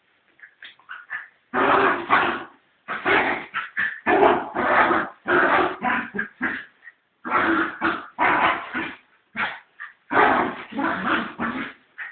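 Fox terrier growling and barking in repeated loud bursts of about a second each, with short gaps, while fighting with a cat.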